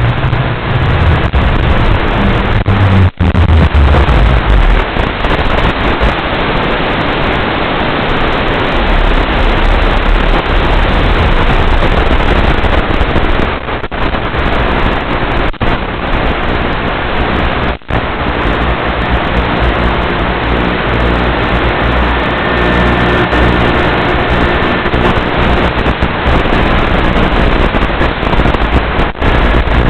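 Steady loud hiss of static from an analog FPV video link's audio channel, broken by a few short dropouts.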